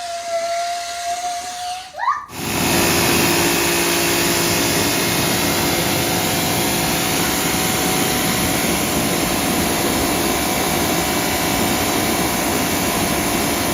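A motor-driven machine running steadily with a loud, even hiss. It starts abruptly about two seconds in, after a thin steady tone that glides upward.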